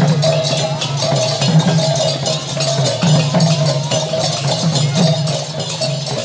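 Kirtan percussion: several double-headed barrel drums (khol) played by hand in a steady, fast rhythm, with small metal hand cymbals clanging on the beat.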